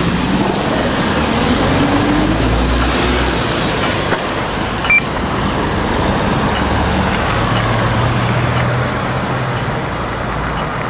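Street traffic: cars passing on wet asphalt, a steady wash of tyre noise and engine hum.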